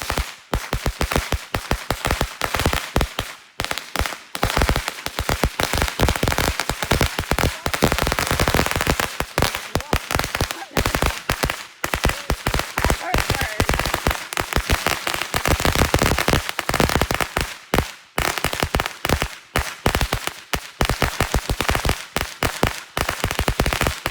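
A long roll of firecrackers going off: a rapid, uneven string of sharp bangs that starts abruptly and keeps going without a real break.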